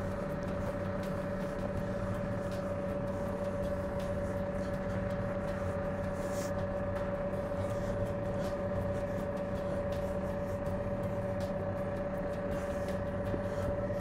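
Cat backhoe loader's diesel engine idling steadily, with faint clicks and scrapes as a twist-to-connect hydraulic coupling is screwed onto the auxiliary line by hand.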